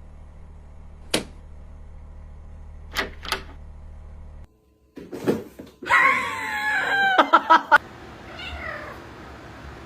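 A cat meowing: a long, wavering call about six seconds in, then a fainter falling meow near the end. A few sharp clicks come before it.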